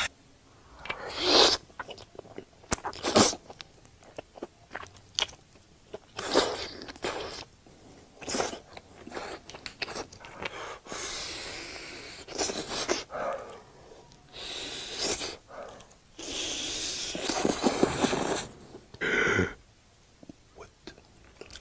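A person eating stringy melted cheese, with chewing and wet mouth sounds in irregular bursts, some short and some lasting a second or two.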